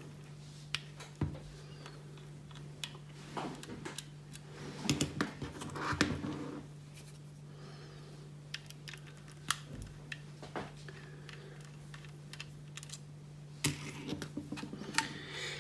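Scattered small clicks and scrapes of a screwdriver backing screws out of a laptop hard-drive caddy, with light handling of the metal caddy and drive, over a steady low hum.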